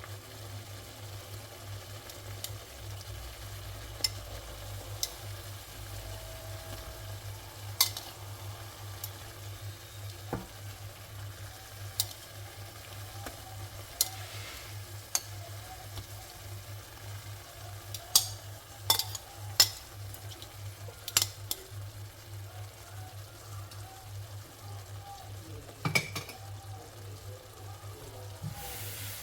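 Food sizzling in a pan while being stirred, with a utensil knocking sharply against the pan now and then, several knocks close together about two-thirds of the way through.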